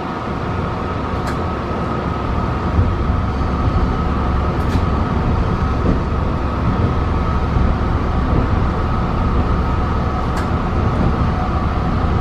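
Long Island Rail Road M3 electric multiple unit running, heard from on board: a steady low rumble of wheels on rail with a steady high hum over it and a few sharp clicks.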